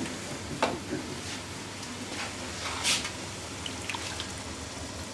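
Cream pouring from a carton into a steel pot of chicken pieces, with a wooden spoon stirring. There are a few short clicks and one louder noisy moment about three seconds in.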